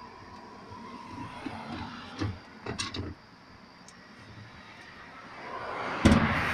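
The plastic agitator of a Hotpoint top-load washer is gripped and turned by hand, giving a few light knocks and clicks, then a louder thump about six seconds in as the washer lid is shut.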